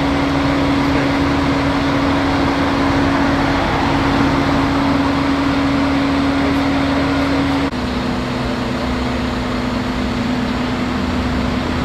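Mobile crane engines running steadily, a continuous mechanical hum with one steady tone; about eight seconds in it drops abruptly to a slightly lower, quieter hum.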